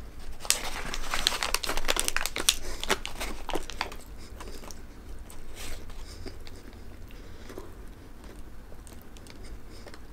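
Brown paper hamburger wrapper crinkling in the hands, densely for the first few seconds and then more sparsely, along with chewing of a mouthful of burger.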